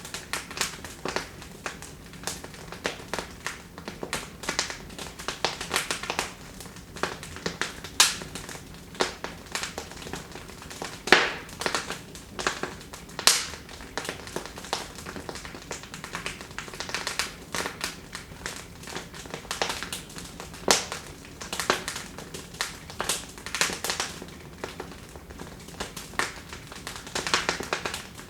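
Wood fire burning in a fireplace, crackling and popping irregularly over a soft hiss, with a few sharper, louder pops.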